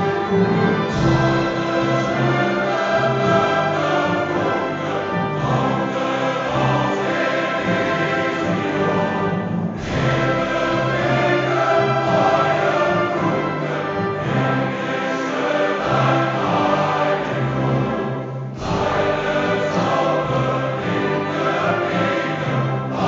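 A choir singing with orchestral accompaniment in a concert hall, continuous and full, with two brief sudden dips, one about ten seconds in and one near two-thirds of the way through.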